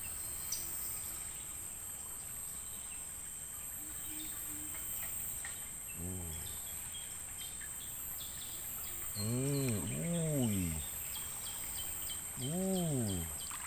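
Tropical riverside insects hold a steady high-pitched drone, with scattered short high chirps. A man makes a few short wordless vocal sounds, each rising and then falling in pitch: one about six seconds in, two overlapping ones a few seconds later, and one near the end.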